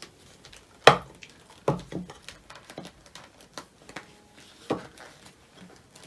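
A dried acrylic paint skin being peeled up by hand: a series of sharp sticky snaps and crackles as it comes away from the surface, the loudest about a second in.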